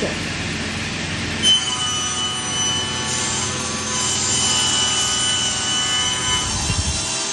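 Wood being cut with a saw: a steady sawing sound. About one and a half seconds in, a high steady whine comes in and holds until near the end.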